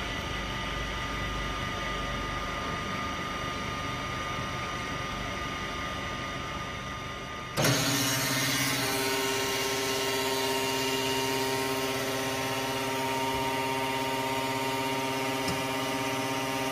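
Oil purifier machine running with a steady mechanical hum from its vacuum pumps. About eight seconds in, the drain oil pump motor cuts in automatically with a sudden jump in loudness and holds a louder, steady hum with several new tones. It has been triggered by the oil in the vacuum separator reaching its upper level control point.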